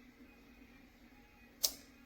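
A single sharp click about one and a half seconds in, over a faint steady hum.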